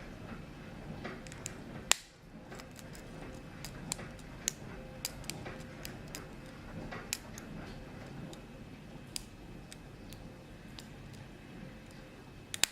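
Lock pick and tension wrench single-pin picking a five-pin iron padlock: small irregular metallic clicks and light scraping as the pins are set, with a sharper click about two seconds in and a quick double click near the end.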